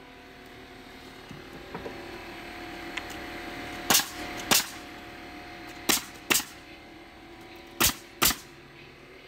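DeWalt pneumatic coil nailer firing nails into pine fence pickets: six sharp shots in three pairs, each pair about half a second apart, with a steady hum underneath.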